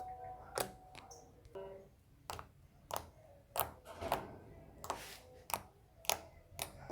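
Slime being worked by hand, giving a run of sharp clicking pops about every half second.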